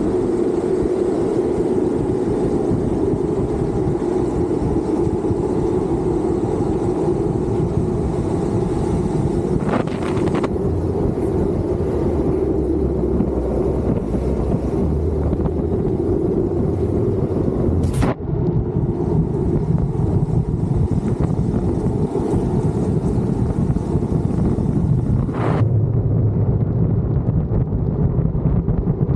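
Wind rushing over the microphone and a street luge's wheels rolling on asphalt at speed, a steady rushing noise, with three brief knocks about ten, eighteen and twenty-five seconds in.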